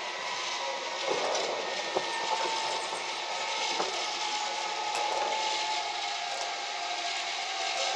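Zip-line trolley pulleys rolling along a steel cable: a steady rushing whir with a thin whine that slowly drops in pitch.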